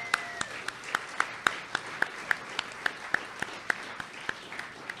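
Audience applauding, with one person's claps standing out close to the microphone in a steady beat of about four claps a second. A brief high-pitched call rings over the start of the applause and dies away.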